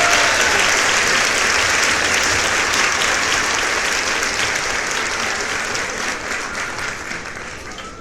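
Crowd applauding, a dense steady clapping that fades out gradually toward the end.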